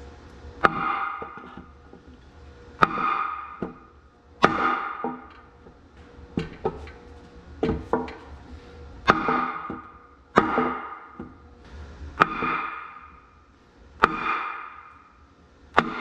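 Hammer blows driving a wet cylinder sleeve out of an Oliver 1600 tractor engine block: about ten sharp strikes, roughly one every second and a half, each followed by a ringing metallic tone that dies away.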